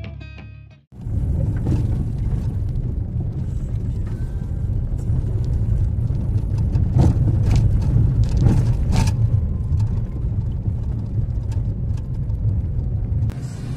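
Car on the move: a steady low rumble of road and engine noise, with a few sharp knocks and clicks around the middle.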